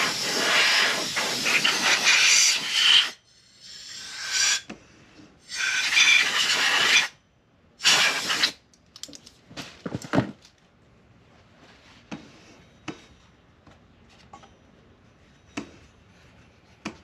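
Compressed-air blow gun blasting air over a crankshaft in four bursts: a long one of about three seconds, then three shorter ones. After that come light knocks and clicks as the crankshaft is handled on its wooden block.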